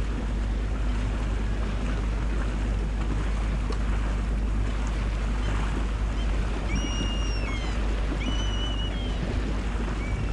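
Steady rush of wind and water from a boat under way, with wind buffeting the microphone. For a couple of seconds past the middle, a few short, high whistles sound over it.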